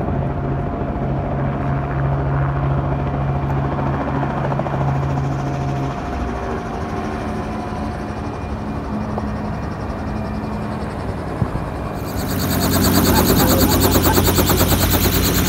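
Steady hum of aircraft machinery on an airport apron. About three-quarters of the way in it switches to a small Robinson piston helicopter running close by, louder, with the rapid flutter of its turning rotor and engine.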